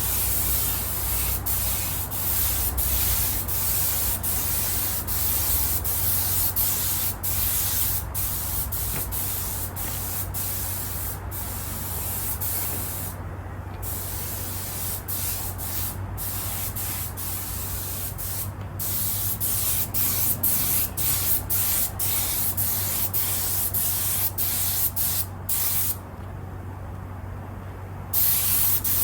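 Spray gun hissing as it lays a coat of leather paint onto a car seat, in repeated bursts cut by brief trigger releases, with longer pauses about 13 seconds in and near the end. A steady low hum runs underneath.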